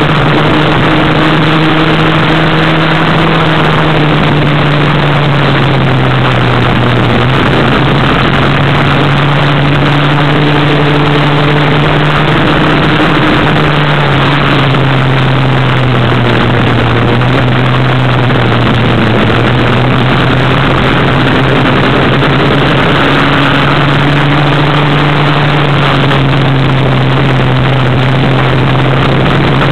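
Off-road buggy's engine running while driving along a gravel track. Its pitch drifts up and down a little with the throttle. Underneath is a steady rushing noise of tyres on gravel and wind.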